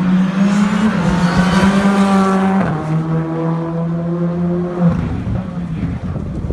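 Rally car engine running hard at high revs, a loud steady pitched note that steps down once about two and a half seconds in and then dies away about five seconds in.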